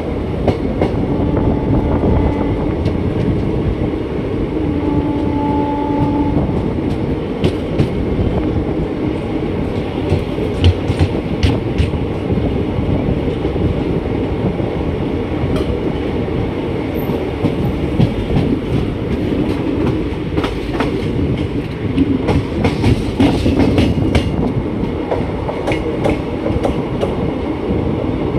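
Passenger train running, heard from the open coach doorway: a steady rumble of the wheels, with clusters of sharp clicks as they pass over rail joints and points about ten seconds in and again past twenty seconds. Two short held tones sound in the first six seconds.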